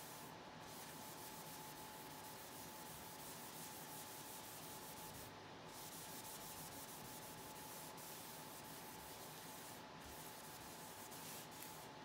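A small pad rubbing alcohol ink across paper in a continuous soft scrubbing hiss, broken by brief pauses about half a second in, around five seconds in and near ten seconds in. A faint steady tone hums underneath.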